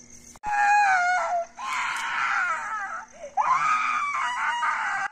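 A woman screaming in three long, high cries, with a sharp click just before the first. It is an acted scream of a woman burning to death in a staged legend.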